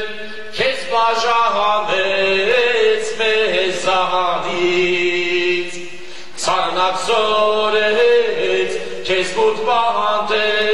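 A man singing a slow, ornamented melody with long held notes, over a low steady drone, in phrases of a few seconds with short breaks between.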